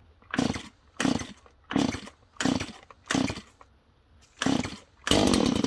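Stihl chainsaw being pull-started cold after sitting about a month: about six quick cord pulls, each turning the engine over briefly, before it catches and runs near the end. The number of pulls it takes is the sign that it has not been run in a while.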